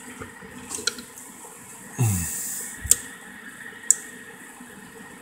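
Steady hiss of a running cooling fan, broken by a few sharp clicks and a short falling whoosh about two seconds in.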